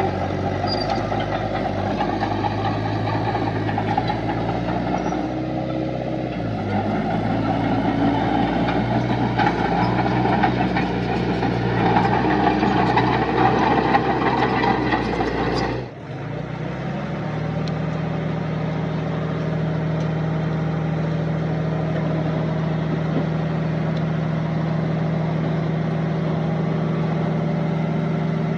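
Diesel engines of heavy earthmoving machinery running, the engine note shifting in pitch and load. About sixteen seconds in the sound breaks off abruptly and a steadier, even engine note follows.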